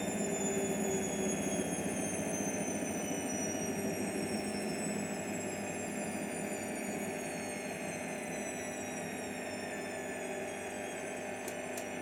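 Hotpoint Aquarius WML540G washing machine winding down: a high motor whine slowly falls in pitch over a steady hum as the sound eases off. Near the end, a few fast light ticks come in, about four a second.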